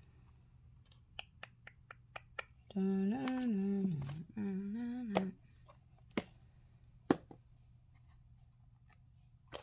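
A run of light clicks, then a woman humming twice, about a second each, then two sharper clicks or taps.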